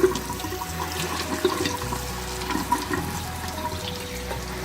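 Water from a sink tap running steadily through a dehumidifier's mesh air filter, rinsing the caked dust off it from the back side.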